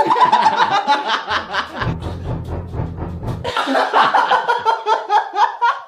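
Music with fast, evenly spaced percussion hits and a deep bass that comes in about two seconds in, with laughter over it.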